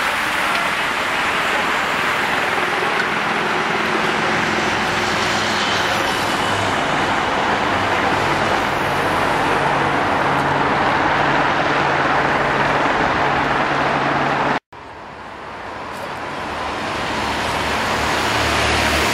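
A large peloton of racing bicycles passes at speed: a loud, steady rush of tyre and wind noise, joined after about eight seconds by the engines of following motor vehicles. After an abrupt cut near the end, motorcycle engines rise as they approach.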